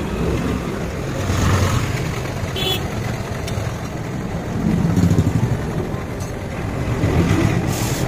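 Low rumble of motor vehicles passing, swelling and fading three times.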